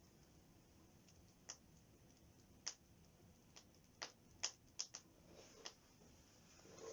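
Wood campfire crackling: sporadic sharp pops and snaps over a quiet background, several in quick succession about four to five seconds in.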